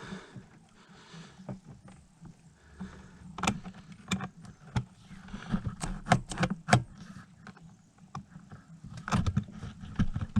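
Irregular small clicks, clinks and knocks of hand work on a snowmobile engine's carburetor cables and linkage, some louder near the end, over a steady low hum.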